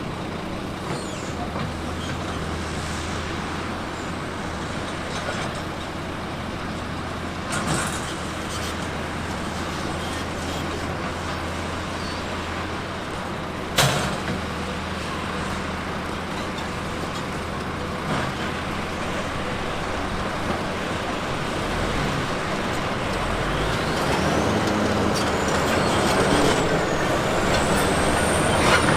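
Bulldozer's diesel engine running steadily under work, with two sharp metallic clanks along the way. Near the end the machine gets louder and a high metal squeal rises and holds, as from the crawler tracks.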